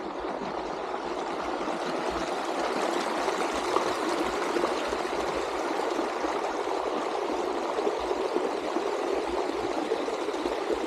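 A stream of running water flowing steadily, an even, continuous rush.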